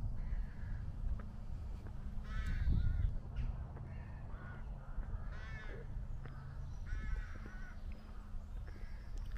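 A crow cawing: three harsh calls spaced a couple of seconds apart, over a steady low rumble.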